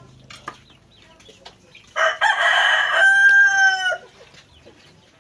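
Rooster crowing once, about two seconds long: a rough opening that turns into a held, clear note which drops off at the end.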